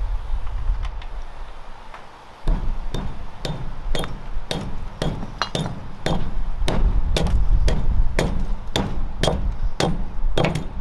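Hatchet chopping into a wooden post, sharp blows about two a second from a couple of seconds in, over a low rumble.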